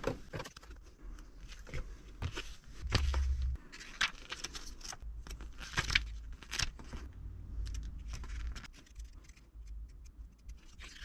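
Handling noises from a small handheld airbag-reset diagnostic tool being picked up and looked over: irregular clicks, taps and light scrapes.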